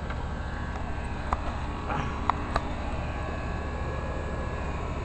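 Steady low background hum, with a few faint short clicks or taps about a second apart near the middle.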